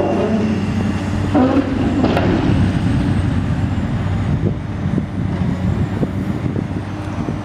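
Diesel engine of a long-reach excavator running steadily under load, with two sharp knocks about a second and a half and two seconds in, then lighter clanks, as its grapple strikes the steel roof of a grain bin to knock it out.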